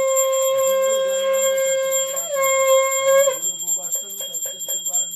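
A conch shell (shankha) blown in one long steady note that breaks and swells again about two seconds in, then stops about three seconds in. Throughout, a puja hand bell (ghanta) is rung rapidly and continuously.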